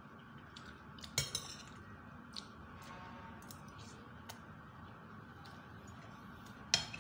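Eating with a metal fork and spoon: the utensils clink sharply on a ceramic plate a few times, loudest about a second in and again just before the end, with soft wet chewing between, over a steady background hum.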